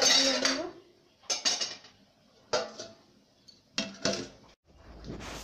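A steel plate lid being set on an aluminium cooking pot, clanking against the rim three times with a short metallic ring each time, to cover the khichuri while it cooks.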